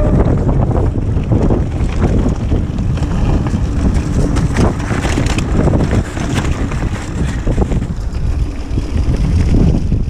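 Wind buffeting the action camera's microphone as a Kona Process 153 DL full-suspension mountain bike runs down a narrow dirt singletrack, with tyre rumble and rattling knocks from the bike over rough ground.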